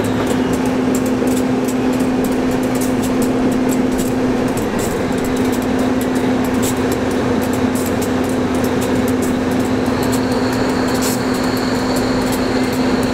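Diesel locomotive idling: a steady drone with one constant low tone that holds unchanged throughout.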